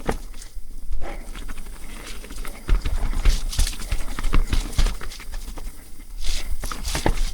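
Mountain bike clattering over a wet, rocky technical trail: tyres rolling and the bike knocking and rattling on rock in quick, irregular knocks.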